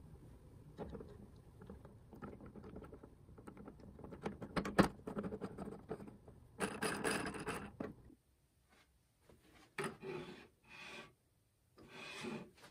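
Hands handling and fitting 3D-printed plastic gears onto a gearbox: plastic rubbing and scraping with scattered clicks, one sharp click about halfway. Near the end, four short sliding scrapes as a metal shaft is pushed through the plastic housing.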